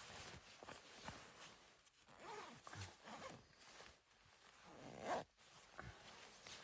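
Quiet rustling and handling sounds, with one louder short sweep about five seconds in that cuts off abruptly.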